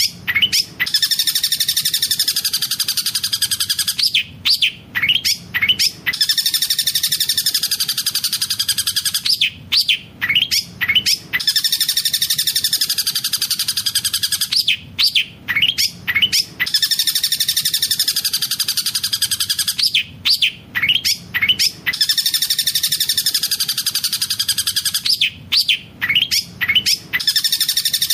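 Long-tailed shrike (cendet) song filled with mimicked collared kingfisher (tengkek buto) calls: a fast, continuous high trill broken about every five seconds by a cluster of sharp, loud, sweeping notes. The same phrase repeats almost identically, as in a looped training recording.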